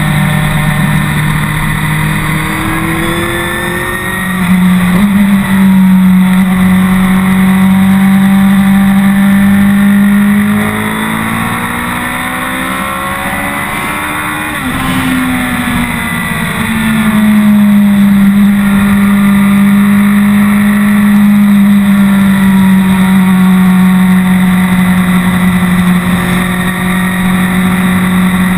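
BMW K1200R Sport's inline-four engine heard from the handlebars while riding. Its pitch climbs about four seconds in and it runs loud and steady, then falls away and quietens for a few seconds in the middle as the throttle is rolled off. It picks up again and holds steady to the end, over a constant rush of wind noise.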